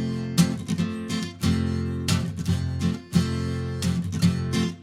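Acoustic guitar strummed in a steady rhythm, several strums a second over ringing chords, with no singing.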